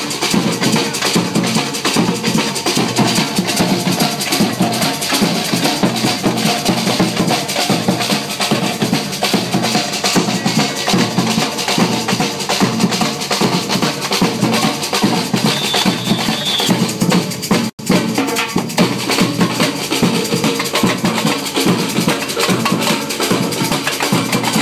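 Samba-style street percussion band drumming a dense, steady groove: large bass drums under snare-type drums, timbales and cymbal. The sound cuts out for an instant near the end, then the drumming carries on.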